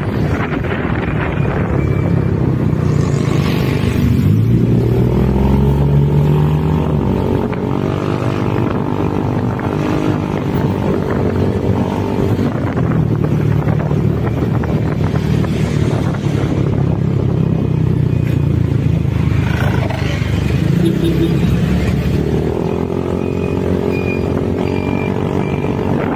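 Motorcycle engine running while riding down the road, with wind noise over the microphone; the engine note rises as it speeds up about four seconds in, and again near the end.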